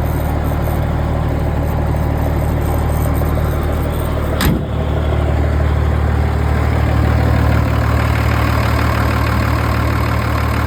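M35A2 deuce and a half's multifuel turbo-diesel inline six idling loud and steady through its straight-piped exhaust, which has no muffler. There is one short sharp knock about four and a half seconds in.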